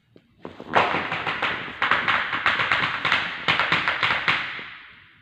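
Rapid tapping on a hard tiled floor, about five taps a second, starting about half a second in and fading near the end.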